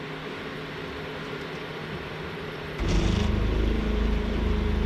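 Portable induction cooktop running with a steady electrical hum and fan. About three seconds in, a much louder low hum sets in and holds, as the cooker works hard to heat the pan.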